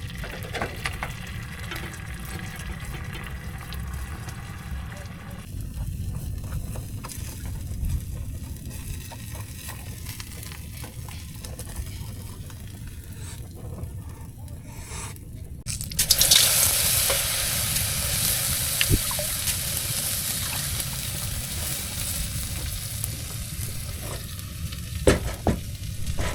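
Cooking in a pan: stirring and clinking, then about sixteen seconds in a loud frying sizzle starts suddenly and keeps going.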